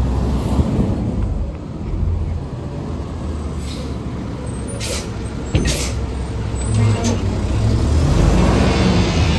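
Garbage truck's engine running steadily, with several short hisses of air around the middle and a sharp knock just after them.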